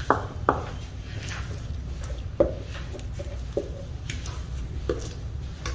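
Kitchen utensils and dishes knocking together, a few short, irregular knocks, while cake batter is being readied to go into the oiled pan.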